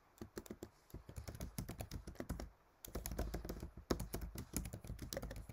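Typing on a computer keyboard: a fast, irregular run of faint key clicks, broken by a brief pause about two and a half seconds in.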